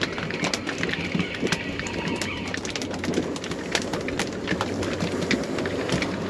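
Wind and sea noise around a small open boat, dotted with many irregular light clicks, over a steady low hum.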